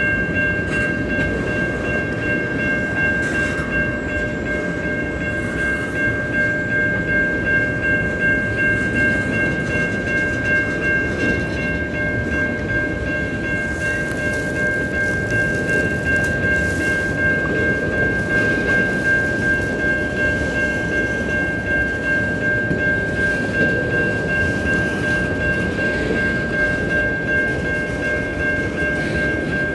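Freight train of loaded tank cars rolling past, the wheels rumbling on the rails, with a steady high-pitched ringing tone over the rumble.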